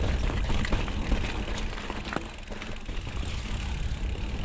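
Mountain bike ridden along a dirt trail: a steady low rumble of wind and tyre noise on the action-camera microphone, with scattered clicks and rattles from the bike.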